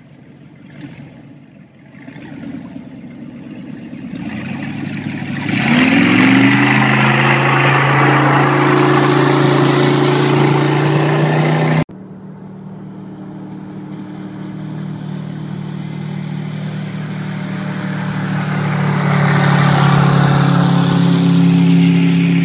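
Baja H2X speedboat's engine idling low, then revving up in a rising pitch about five seconds in for a full-throttle hole shot and running loud and steady. After a sudden cut, the boat is heard running fast at a distance and growing louder as it passes by at speed near the end, with a rushing hiss of water and spray.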